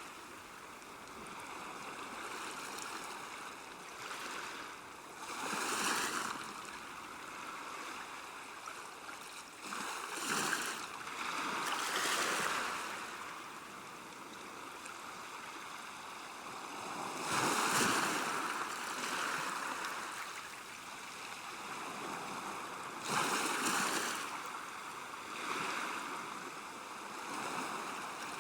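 Small waves washing gently onto a shore, a steady wash that swells every few seconds as each wave breaks and runs back.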